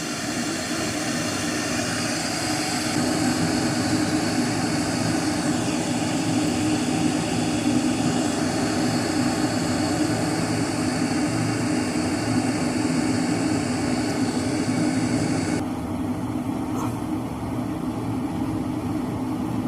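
Pigeon 1.5-litre, 1500 W electric kettle heating water toward the boil: a steady rushing rumble with hiss. About three-quarters of the way through, the higher hiss drops away suddenly while the low rumble continues.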